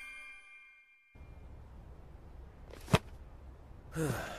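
Chiming notes of a title-card jingle ring out and fade, leaving a moment of silence. Then comes faint background ambience, with a single sharp click or ding about three seconds in and a short falling sound near the end.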